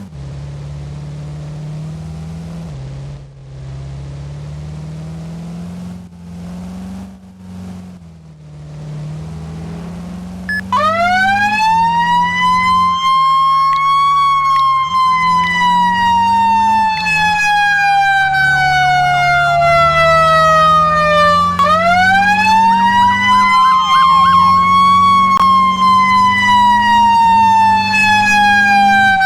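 Fire truck engine accelerating, its pitch climbing and dropping back as it shifts gears. About ten seconds in, its siren starts: the wail rises over a few seconds and then falls slowly. It winds up again near the end and falls off once more.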